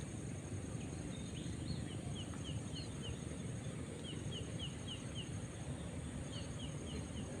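A bird calling in repeated runs of four or five short, high, falling notes, about four a second, over steady low outdoor background noise and a faint steady high buzz.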